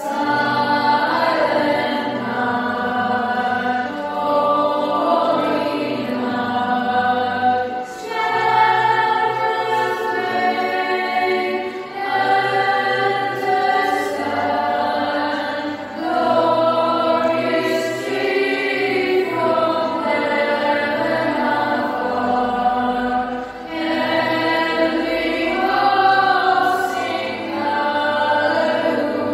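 A choir singing in several voices, in held phrases a few seconds long.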